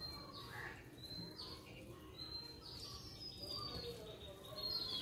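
Small birds chirping: a string of short, high calls, several falling in pitch, with a quicker run of calls near the end.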